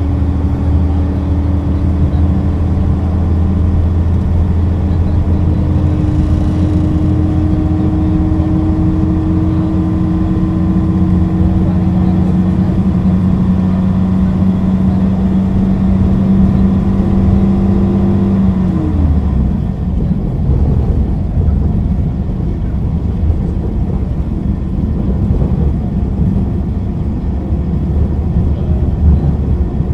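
Diesel engine of a 1966 MAN railbus running steadily, its note slowly rising. About 19 seconds in, the note falls away as the power comes off, leaving a rough running rumble.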